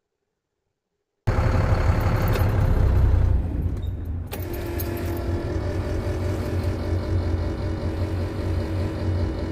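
A vehicle engine running: it cuts in abruptly about a second in, runs loudest for about two seconds, then settles to a steady, lower run.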